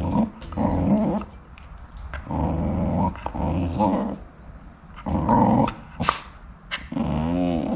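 A dog growling in repeated short bouts, each under a second, with a sharp click about six seconds in.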